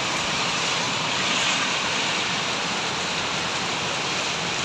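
Heavy rain pouring down in a storm, a dense, steady hiss.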